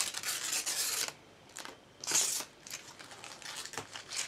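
Plastic protective film crinkling and rustling as it is picked and peeled off a new computer monitor's bezel. It comes in short spells, with a pause of about a second shortly after the start.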